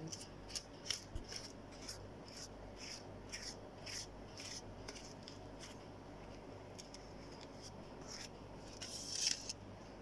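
Pastry brush dabbing olive oil onto sambusa pastry on a foil-lined baking tray: a faint run of short brushing swishes, two or three a second, with a louder flurry near the end.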